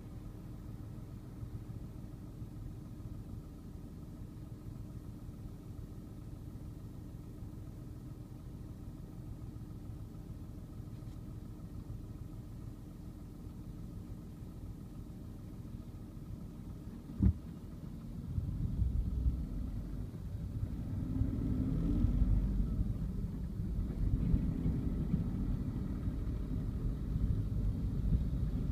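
Low, steady rumble of a car's engine and cabin heard from inside the car while it waits in traffic. A single sharp click comes about seventeen seconds in, and from about eighteen seconds the rumble grows louder, rising and falling, as the car pulls away and gathers speed.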